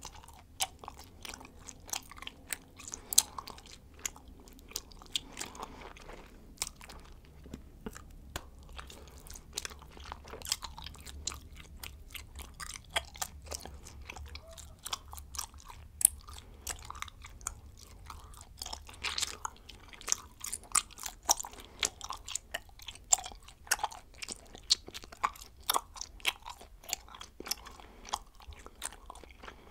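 Bubblegum being chewed with the mouth open: a continuous, irregular run of sharp wet clicks and smacks, several a second, with a few louder snaps.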